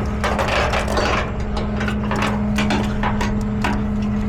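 Clicks, knocks and scrapes of tie-down straps and hooks being handled and tightened. Under them, a tow truck's engine runs with a steady hum.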